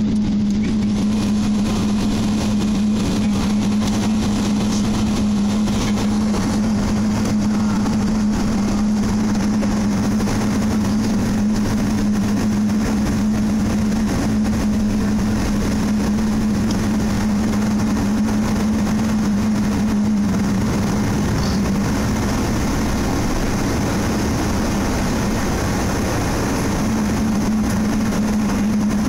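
Cabin noise of an Airbus A380 taxiing after landing: a steady low drone from the engines at idle and the cabin air, over a wide rushing hiss. The drone eases for a few seconds about two-thirds of the way through, then returns.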